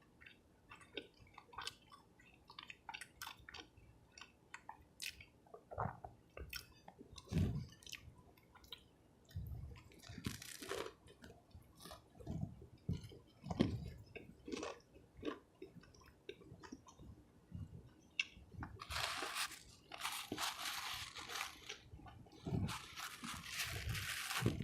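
Close-miked chewing and biting of a fish sub and fries: wet mouth clicks and crunches, with longer stretches of crunching around the middle and in the last several seconds.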